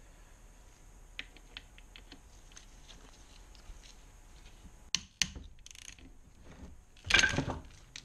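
A seized steel bolt in a Kawasaki KLR 650's aluminium crankcase being turned with a socket wrench: scattered light clicks, two sharp cracks about five seconds in, then a louder rough crunch about seven seconds in. The sounds are the bolt straining and shearing off.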